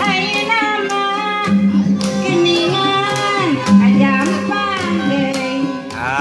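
A woman singing a traditional Sundanese melody into a microphone, with long ornamented notes, accompanied by a plucked kacapi zither and gamelan metallophones, while hands clap a steady beat.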